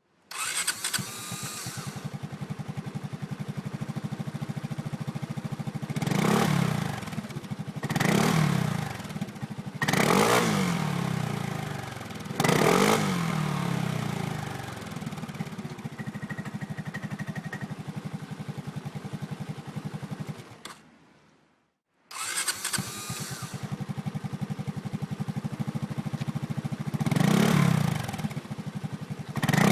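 Kymco X-Citing 300 scooter's single-cylinder four-stroke engine, breathing through a G&G aftermarket muffler. It is started, idles with a steady pulse, and is blipped four times. It dies away about two-thirds of the way in, is started again a second later, and is revved twice more near the end.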